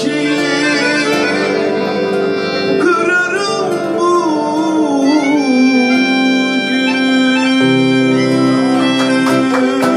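Live Turkish band music: an accordion carries the melody over oud and acoustic guitar, settling into a long held chord in the second half.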